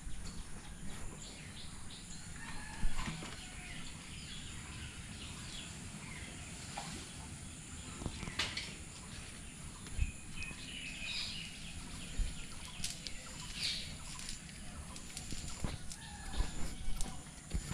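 Chickens clucking and small birds calling around a village pond, with a few dull thumps and rustling as a cast net and a metal pot are handled on the bank.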